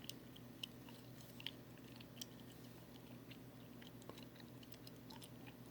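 Near silence: faint steady hum with a few faint, scattered clicks.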